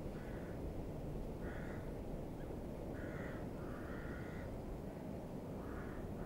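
Crows cawing, about five calls spaced a second or so apart, over a steady low rumble.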